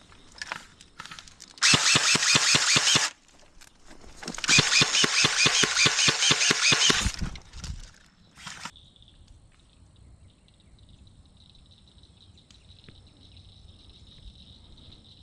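Airsoft gun firing two full-auto bursts, the first about a second and a half long and the second nearly three seconds, at roughly a dozen shots a second. Afterwards a faint steady cricket trill carries on.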